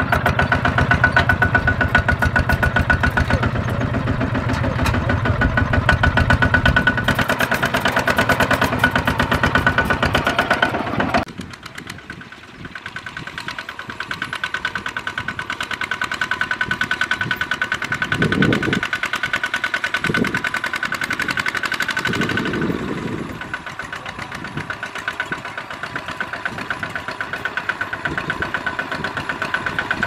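Kubota ZT155 single-cylinder diesel engine of a two-wheel walking tractor running under load, with fast, even firing pulses. About eleven seconds in, the sound cuts suddenly to a quieter stretch of the same kind of engine running.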